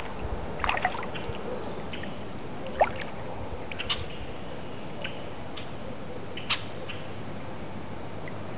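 Kayak on the water: a steady hiss of moving water with a few sharp small knocks and drips from the paddle and hull, about six in all, scattered and uneven.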